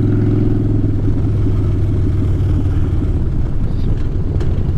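Harley-Davidson Dyna Fat Bob V-twin with Vance & Hines Short Shots exhaust running at steady riding speed, with wind rush on the microphone; the engine note is strongest in the first two seconds and then becomes less distinct.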